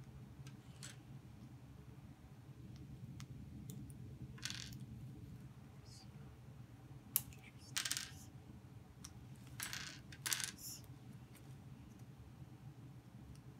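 Plastic LEGO bricks being handled and pried apart: scattered sharp clicks and short clatters, most of them in the middle of the stretch, over a faint steady hum.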